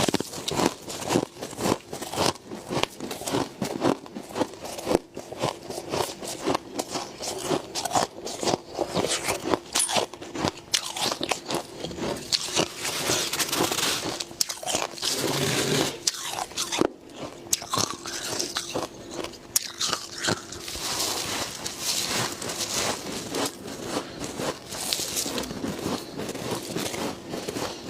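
Humidifier snow frost being bitten and crunched close to the microphone, a dense run of sharp, irregular crunches with chewing in between.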